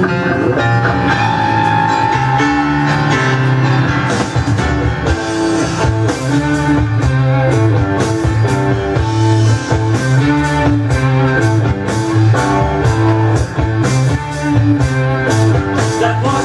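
Early-1970s hard rock playing from a vinyl LP: a heavy repeating riff on electric guitar with drums, the drums and cymbals coming in strongly about four seconds in.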